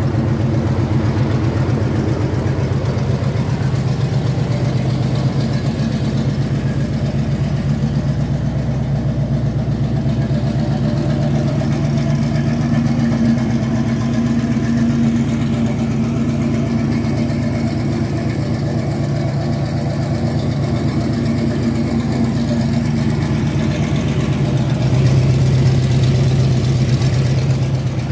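1978 GMC Caballero's 400 small-block V8 idling steadily through dual Magnaflow exhausts while it warms up after a cold start. It grows a little louder near the end.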